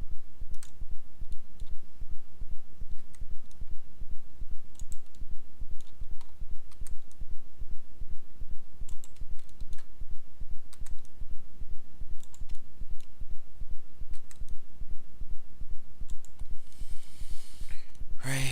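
Scattered computer mouse clicks and key taps over a low electrical hum that pulses several times a second. A short hiss comes near the end.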